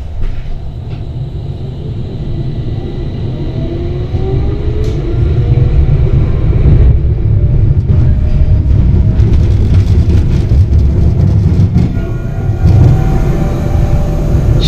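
Tram running along its track, a low rumble that grows louder as it picks up speed, with a faint rising whine from the traction motors.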